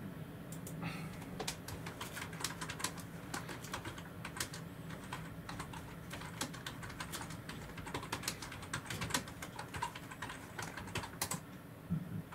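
Rapid, irregular sharp tapping clicks, several a second, over a low steady hum.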